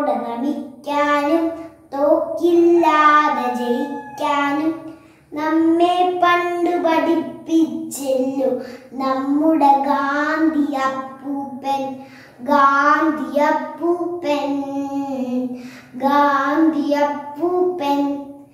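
A young girl singing solo and unaccompanied, in a run of short phrases with brief breaks between them.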